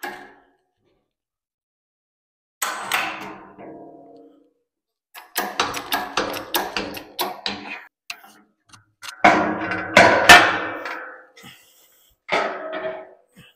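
Large aluminum sheet clattering and ringing as it is handled and slid into a metal-bending press: a ringing clang about three seconds in, a run of rattling knocks, a louder ringing clang around ten seconds, and another near the end.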